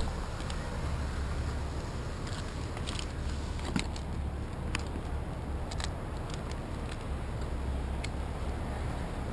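Scattered sharp clicks and light rustling of climbing gear, carabiners and rope being handled at the harness, over a steady low rumble.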